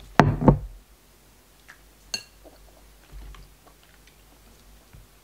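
Close-up eating sounds of a person biting into seafood: a short loud crackly bite near the start, one sharp glassy clink about two seconds in, then soft chewing clicks.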